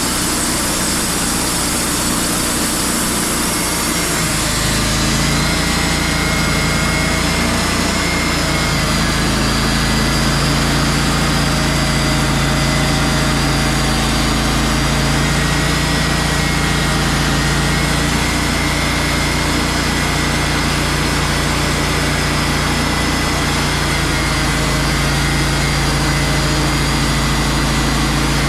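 Wood-Mizer portable sawmill's engine running steadily, its note changing about four seconds in and then holding even.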